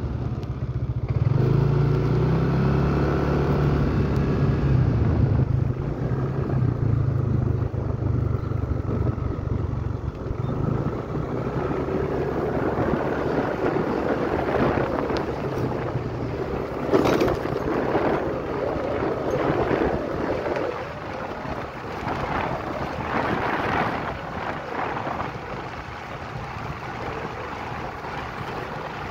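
Small motorcycle engine running while being ridden, its pitch rising about a second in as it picks up speed, then fading under wind buffeting the microphone in gusts through the second half.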